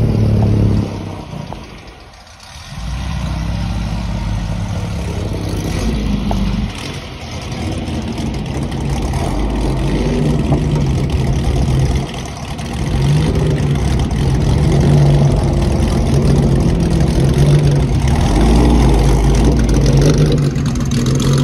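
1950s racing car engines idling and pulling away slowly one after another, swelling and fading as each car passes. The sound drops away about two seconds in, then builds to its loudest near the end as a Jaguar C-type's straight-six rolls by close up.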